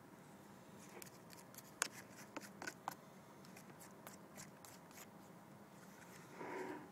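A spoon clicking and scraping against a bowl of oatmeal: a run of light clicks, the sharpest about two seconds in, thinning out after that. A short muffled sound near the end.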